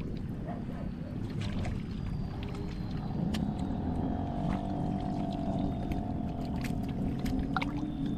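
A small engine runs steadily with a low, even hum, and sharp clicks and ticks sound over it.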